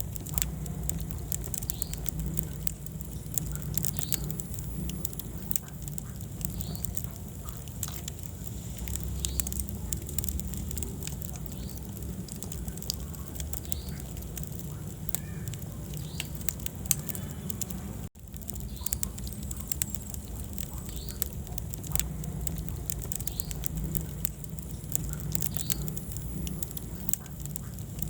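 Wood fire burning in a fireplace: a steady low rumble of flames with frequent sharp crackles and pops. The sound cuts out for an instant about 18 seconds in.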